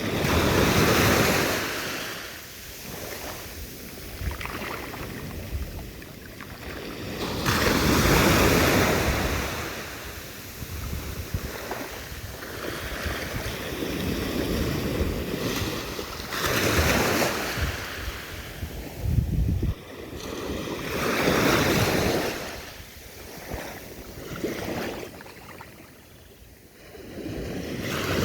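Sea waves washing in, a rushing hiss that swells and fades in slow surges several seconds apart, four of them loud, with a quieter wash between.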